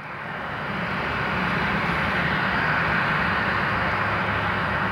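Boeing 737-800 with CFM56-7B turbofan engines taxiing at low power: a steady jet rush and hiss that fades in over the first second.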